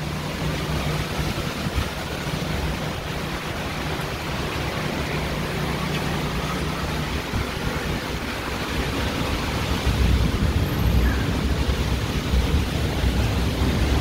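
Heavy thunderstorm rain pouring steadily, with strong wind gusts buffeting the microphone from about ten seconds in.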